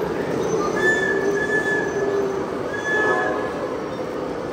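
Model trains running on an exhibition layout, with a steady high-pitched squeal that comes in about a second in, breaks off briefly and returns, over a dense steady running noise.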